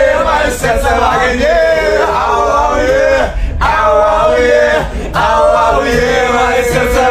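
Several men singing loudly together in phrases with short breaks, to a strummed acoustic guitar.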